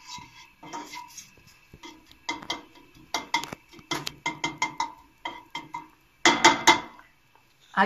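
A spoon clinking and scraping against a stainless steel pan as chopped onion is stirred in oil. The knocks come several a second in the middle, with a louder cluster near the end, and the pan rings faintly under them.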